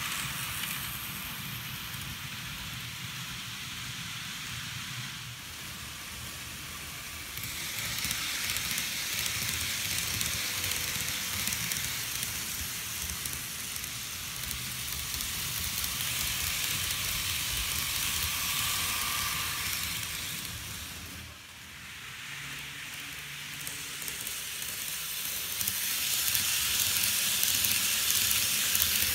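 N-gauge model trains rolling along the track: a steady hissing rattle of small wheels on rail that swells louder as a train passes close, loudest near the end.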